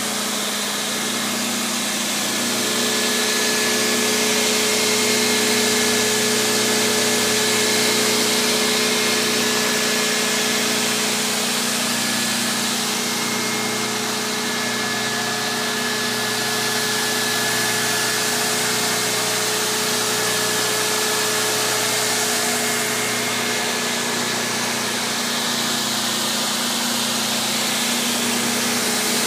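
Spindle shaper running steadily with no wood being cut: an even machine hum with a few steady tones over a high hiss.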